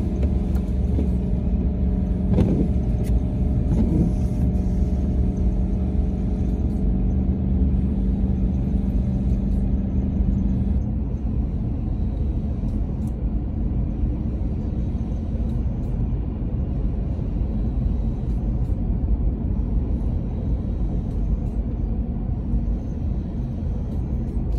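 Car driving on the highway, heard from inside the cabin: a steady low rumble of engine and tyres on the road, with a steady hum that stops about eleven seconds in.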